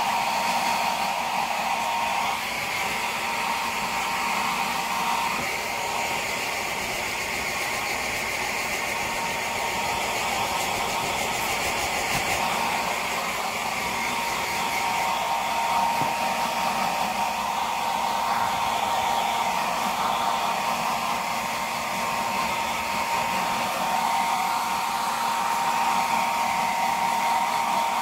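Hair dryer running steadily, its motor giving a steady whine over the rush of blown air, drying a small dog's fur after its bath.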